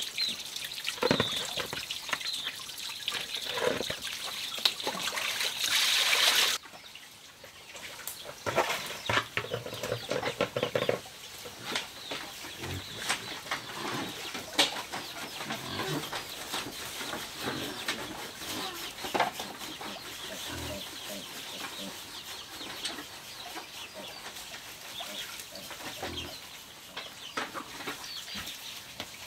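Water splashing and trickling as meat is washed by hand in a plastic basin, cutting off about six seconds in. Then hens clucking, with light rustling and knocks from a blanket and a woven bamboo basket being handled.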